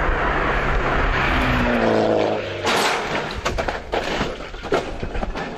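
Mini Cooper rally car's engine running hard and rising in pitch as it approaches, cut off by a loud crash about two and a half seconds in. A clatter of scraping and knocks follows as the car tips over onto its side.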